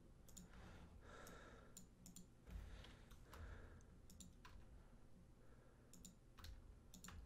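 Near silence with faint computer mouse clicks every second or so, some in quick pairs, over a low steady room hum.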